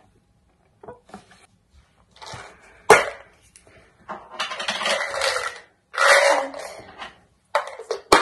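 Plastic bottles being handled: a sharp knock about three seconds in, then several bursts of scraping and rustling handling noise as a small supplement bottle is picked up and opened.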